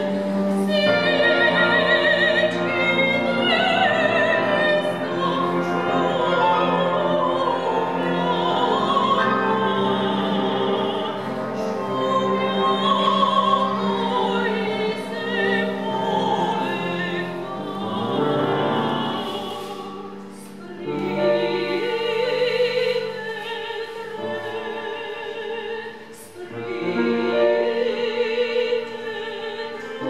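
Operatic soprano singing with vibrato over piano accompaniment, with two brief breaks between phrases in the second half.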